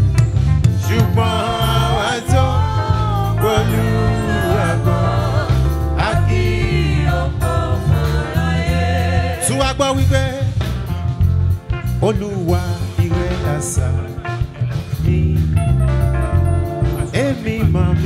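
A live gospel choir and lead singer on a microphone, singing with an amplified band of electric guitars and bass, which runs strong and steady underneath the voices.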